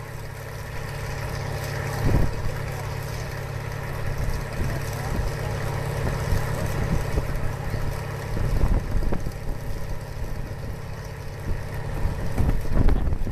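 Farm tractor engine running steadily as it tows a riders' wagon, heard from the wagon behind it, with low rumble. There is a thump about two seconds in and another near the end.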